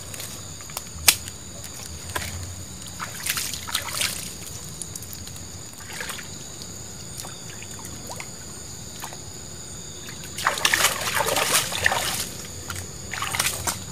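Water splashing and sloshing as a person wades in shallow river water, loudest in a burst of splashes from about ten seconds in. A single sharp knock comes about a second in.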